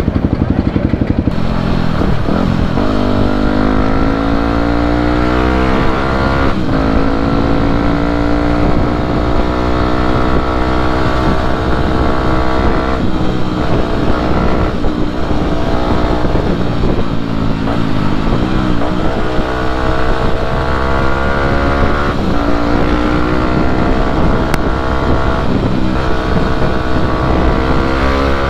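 Yamaha WR250 supermoto's single-cylinder four-stroke engine pulling away from a stop and accelerating, rising in pitch over the first few seconds. It then runs on at road speed, with several brief dips in pitch at the gear changes.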